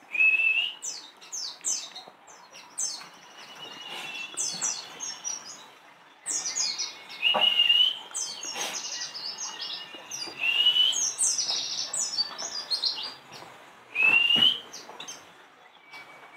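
Several caged white-eyes (pleci) chirping and twittering in quick high clusters. A short rising whistled note comes back about four times.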